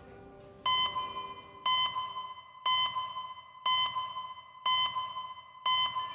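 Electronic beep sound effect timed to an on-screen clock: six ringing beeps, one each second, each fading before the next.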